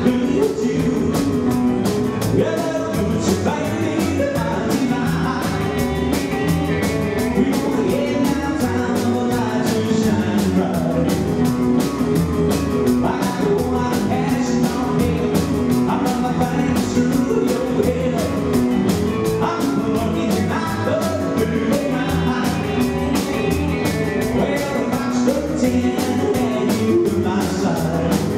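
A live rockabilly band playing a rock 'n' roll song: drum kit keeping a fast, steady beat under upright double bass, piano and a male lead vocal.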